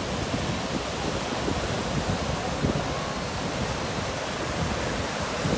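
Rough sea surf breaking and washing up the beach in a steady rush, with wind rumbling on the microphone.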